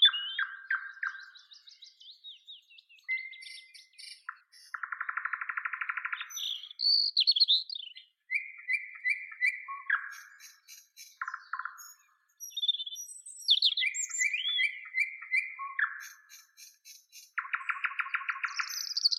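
Nightingale singing: varied phrases of a few seconds separated by short pauses, mixing fast rattling trills, runs of repeated notes and whistled flourishes.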